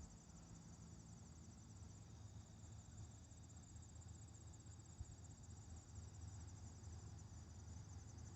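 Near silence with faint, steady, high-pitched insect chirring.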